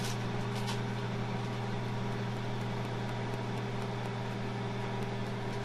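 Sunbeam microwave oven running, a steady, even electrical hum.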